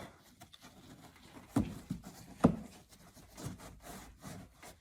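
A plastic trim cover rubs and scrapes against the tailgate trim as it is fitted into place, with two sharp knocks about a second and a half and two and a half seconds in.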